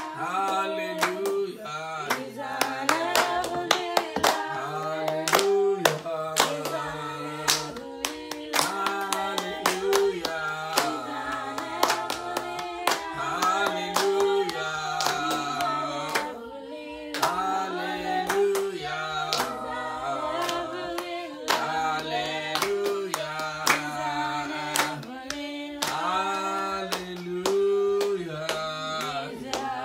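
A worship song sung with hands clapping along in a steady beat; the melody repeats in short phrases of held notes.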